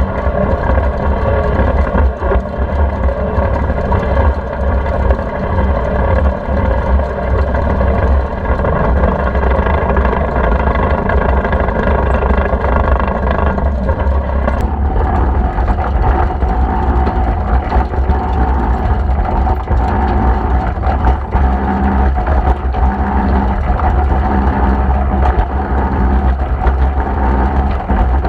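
Deutz D4506 tractor's air-cooled four-cylinder diesel running steadily under way with a loader wagon in tow; its note changes about halfway through and then holds steady again.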